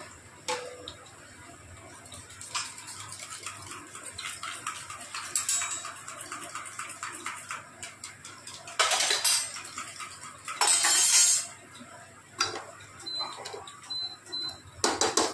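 Steel kitchen utensils clinking and clattering as a spatula and a slotted skimmer are picked out, with two louder rattles about nine and eleven seconds in. Under them, a light crackle of potato tikkis shallow-frying in hot oil.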